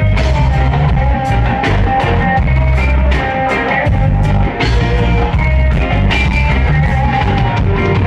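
Live reggae band playing: a heavy bass line, regular drum hits and electric guitars.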